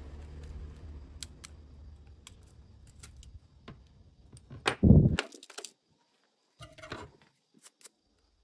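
Small metal clicks and clinks of a precision screwdriver and the phone's tiny metal bracket and screws being handled and set down on a wooden table, with one louder handling thump about five seconds in.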